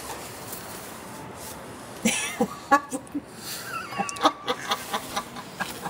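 Low background noise, then about two seconds in people start laughing in quick, repeated pulses of voice.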